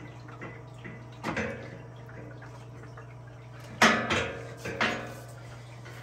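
Knocks and a short metallic clatter with some ringing about four seconds in, from handling plumbing fittings at a basement sink drain, over a steady low hum.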